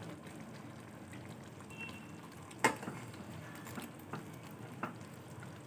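Prawn and potato curry in a yogurt-mustard gravy simmering gently in a pan on low flame, a soft steady bubbling, with a spatula clicking against the pan once sharply and a few times more lightly.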